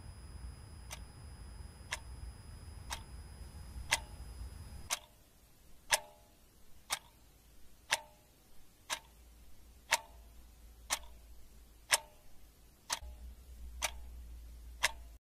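Clock ticking steadily, about one tick a second, over a low hum that stops about five seconds in.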